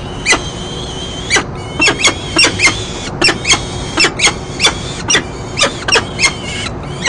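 Peregrine falcon at the nest scrape giving a rapid series of short, sharp chipping calls, about two a second and irregularly spaced, with a thin, drawn-out high note between some of them.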